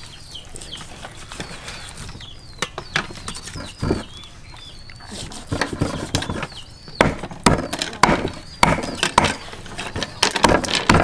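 Steel cleaver cutting through raw pork belly and knocking on a wooden chopping board. The knocks are sparse at first, then come quickly and more loudly, two to three a second, from about halfway in.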